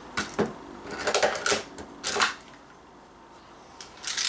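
Sharp mechanical clicks and rattles of a Daisy 340 spring-powered BB pistol being handled between shots. They come in short groups: just after the start, around a second in, at about two seconds, and near the end.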